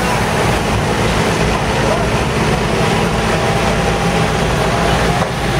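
A road-rail excavator fitted with a Fassetta track attachment runs steadily. Its diesel engine and machinery make a loud, constant din with a low hum.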